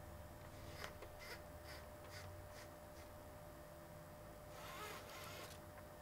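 Typewriter being loaded with paper: about six faint clicks a little under half a second apart as the roller is turned to draw the sheet in, then a rustling scrape lasting about a second near the end.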